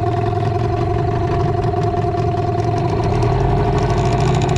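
Jon boat's outboard motor running at a steady speed, a constant even pitch without revving.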